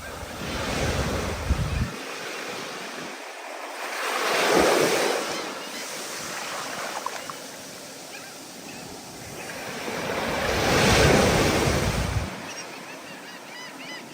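Ocean surf in rising and falling swells, with waves breaking loudest about four and eleven seconds in, and wind buffeting the microphone in low rumbling gusts.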